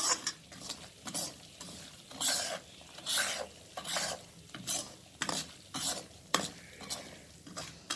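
Metal ladle scraping and stirring coarsely ground moong dal as it roasts in ghee in a metal kadai, about two uneven strokes a second over a low sizzle.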